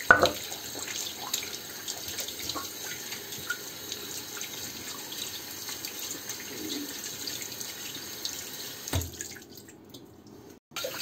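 Tap water running into a sink over a stainless steel teapot as it is rinsed by hand, washing off the cleaning paste. Small clinks run through it, with a sharp knock right at the start and another about nine seconds in.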